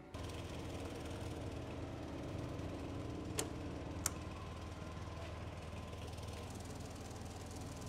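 A steady low rumbling drone, with two sharp clicks a little past halfway, less than a second apart, from switches on a wall switch panel being flicked.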